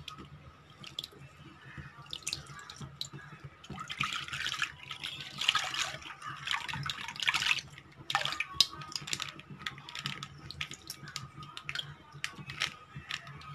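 Milk poured from a cut plastic packet into a metal kadhai, splashing loudly for a few seconds about halfway through, with scattered drips and small splashes before and after.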